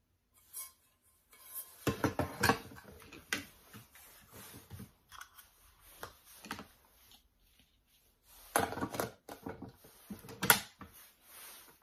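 Parts of a Tenavo mini rice cooker being handled: the coated metal inner pot set into the cooker body and the plastic steamer basket placed in the pot. The result is a string of knocks and plastic clatter, with a busy cluster about two seconds in and another, with the loudest knock, in the last few seconds.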